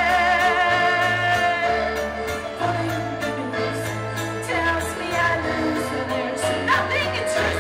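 Live band music with a woman singing long, wavering held notes over a bass line that changes note every second or two.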